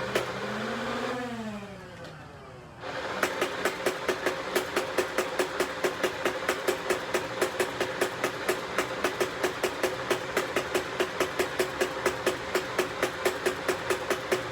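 Motorized Nerf Rival blaster firing full-auto, about four shots a second over the steady hum of its flywheel motors. Early on the firing breaks off into a short whine that rises and falls, then a brief lull. The rapid firing starts again about three seconds in and keeps going steadily.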